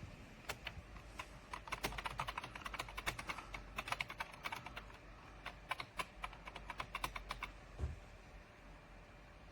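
Typing on a computer keyboard: a quick, uneven run of key clicks for about seven seconds, then a single dull thump near the end.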